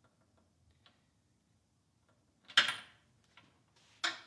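Light clicks, then two sharp knocks about a second and a half apart with a smaller one between, as a leak-down tester's hose and fitting are handled while being threaded into the spark plug hole of a small engine's cylinder head.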